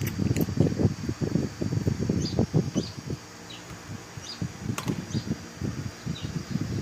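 Irregular low rustling and handling noise from the work on the brake caliper, with a small bird chirping short falling notes about once a second in the background.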